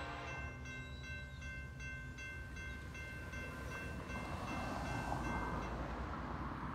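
Railroad grade-crossing warning bell ringing in rapid, even strokes as the crossing gates lower, stopping near the end. A train horn fades out in the first half-second, and a rushing noise builds from about four seconds in.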